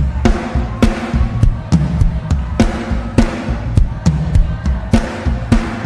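Live gospel worship music: a drum kit playing a steady beat with kick and snare, over a bass line and sustained chords.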